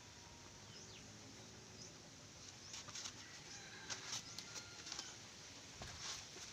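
Faint bird chirps over quiet background noise, with a few soft clicks in the second half.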